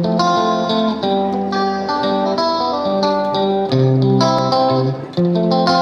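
Background music: a plucked guitar melody, one note after another stepping up and down in pitch.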